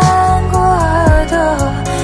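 Mandarin pop song: a sung melody, wavering slightly, over a bass line and a deep drum beat.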